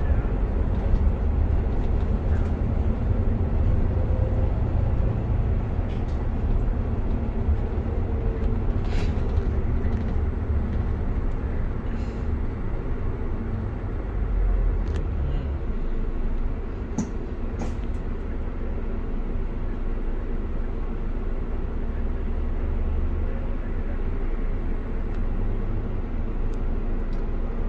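Bus cabin noise while under way: a steady low engine and road rumble, with a few light clicks and rattles.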